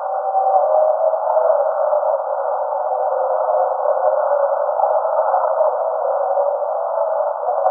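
Super Formula SF23 single-seater engines running at speed, heard as a thin, tinny whine whose pitch wavers as the cars accelerate and shift. The track audio has been cut down to the midrange by a deliberate VHS-style effect.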